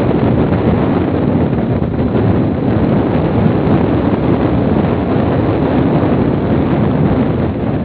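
Steady wind rushing over the microphone of a moving Honda XRM 125 motorcycle, with the bike's running and road noise mixed in underneath.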